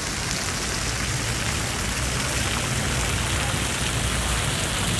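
Steady splashing hiss of a street fountain's water jets, growing a little louder toward the end, over a low hum of city traffic.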